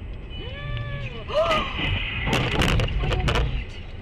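Car collision heard from inside a car: a high cry or squeal that rises and falls twice in the first second and a half, then a cluster of heavy impacts and crunching from about two to three and a half seconds in.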